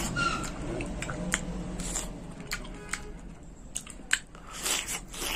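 A person eating soft, juicy long mulberries, chewing wetly with sharp mouth clicks and smacks scattered throughout, a little busier near the end.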